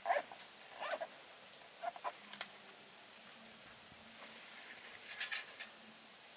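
Faint handling noises: a few short rustles and light clicks as a zippered fabric case is opened and things are set on a wooden cutting board. A quick cluster of them comes about five seconds in.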